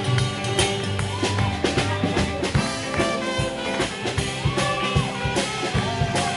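Live band music from a drum kit, double bass and guitar playing a lively dance tune, with a steady beat on the drums.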